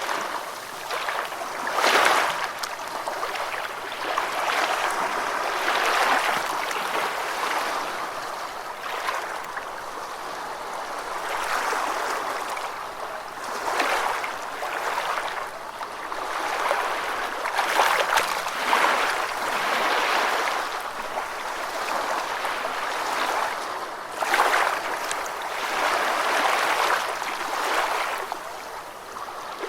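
Gentle ocean waves washing in, a continuous hiss of water that swells and eases every few seconds, light and with little low rumble.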